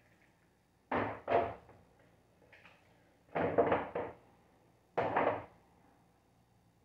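Dull thumps and wet slaps of mustard-coated racks of ribs being turned and laid back down in a plastic tub: two close together about a second in, a cluster around three and a half seconds, and one more about five seconds in.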